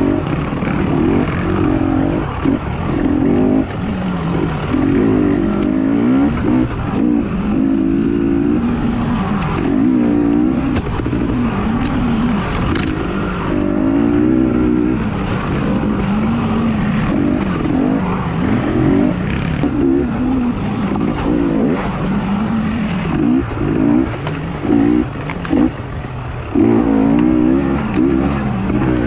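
Racing engine running hard, revving up and easing off over and over, its pitch climbing and dropping every second or two.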